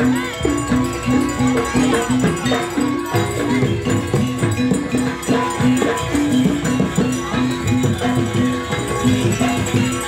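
Live traditional Javanese dance music: an ensemble playing a fast, steadily repeating figure of pitched notes, with no break.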